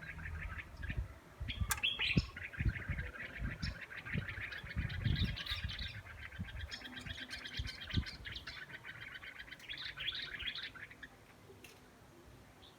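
A small songbird singing a long song of rapid trilled chirps that stops near the end, over low muffled thumps.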